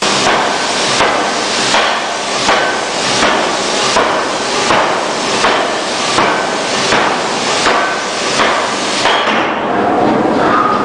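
C41-2000kg pneumatic forging hammer striking a glowing hot workpiece in a steady rhythm, about four blows every three seconds. The blows stop about nine seconds in, leaving a steady machinery noise.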